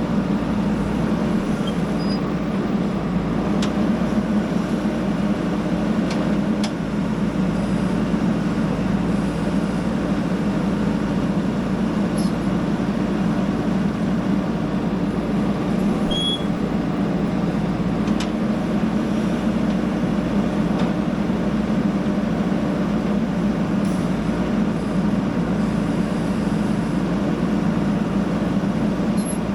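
Diesel engine of a JCB backhoe loader running steadily, with a few faint clicks.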